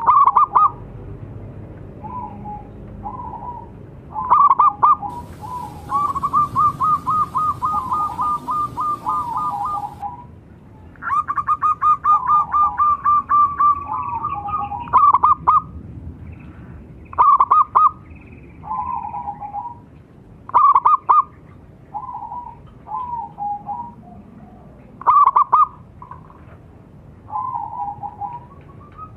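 A group of local zebra doves (perkutut) cooing, recorded as a lure to set other perkutut singing. Short staccato coo phrases are heard throughout, with overlapping calls at slightly different pitches. Two long runs of fast repeated notes of about four to five seconds each fall in the first half.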